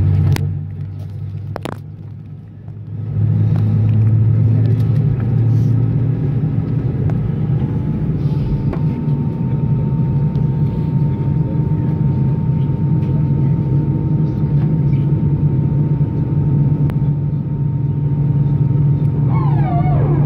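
Steady low rumble inside the cabin of an Airbus A320 on the ground before take-off. It dips quieter for a couple of seconds near the start, and a steady higher whine joins in about eight seconds in.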